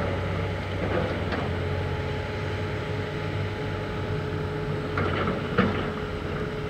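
Komatsu PC360LC excavator's diesel engine running steadily as its demolition grapple works brick rubble, with a few short knocks of brick debris about a second in and again about five seconds in.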